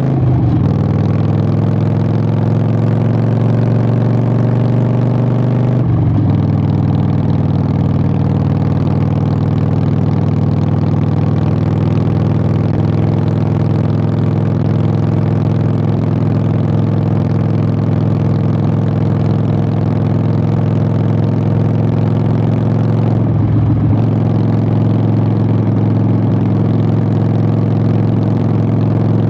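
Harley-Davidson 883 Sportster's air-cooled V-twin through Vance & Hines Short Shots exhaust, riding along. The exhaust note drops sharply with a gear change right at the start and again about six seconds in, dips once more near the end, and holds a steady cruising pitch in between.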